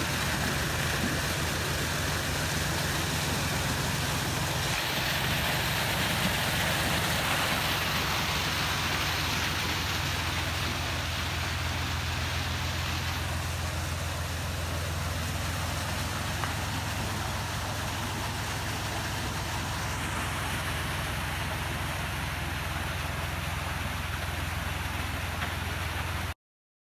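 Narrowboat's diesel engine running steadily at idle, a constant low hum, under a steady hiss that swells slightly a few seconds in. The sound cuts off suddenly near the end.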